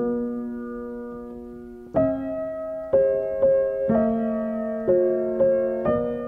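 Background piano music: slow single notes and chords, each struck and left to ring and fade. A held chord dies away over the first two seconds, then new notes follow about once a second.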